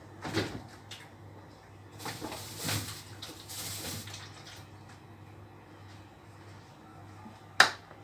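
Quiet kitchen handling noises: a rustle between about two and four seconds in, then one sharp knock near the end as a filled plastic bottle is handled and brought over.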